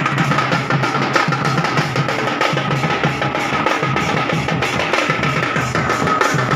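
Gadwa baja folk band playing for Raut Nacha dancing: drums beating a fast, dense rhythm, with a steady high note held over them.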